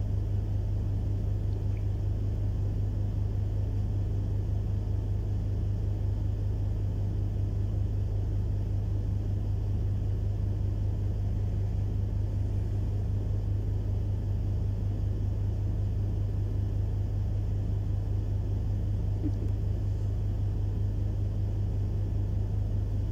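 A steady low hum with a fine, even flutter, unchanging throughout.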